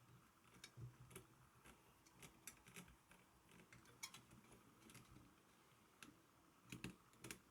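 Faint, irregular light clicks and taps of small hard parts being handled, with a cluster of louder clicks near the end.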